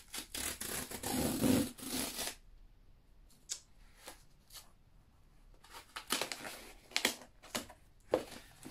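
Tear strip of a cardboard book mailer being ripped open, a rasping tear lasting about two seconds, followed by scattered short rustles and scrapes as the cardboard box is opened and handled.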